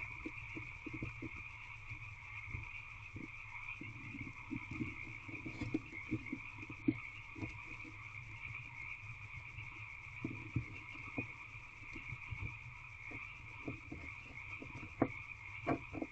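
Irregular scratching and scuffing of a barn owl shifting about and clearing the floor of a wooden nest box, over a steady high chorus of frogs calling.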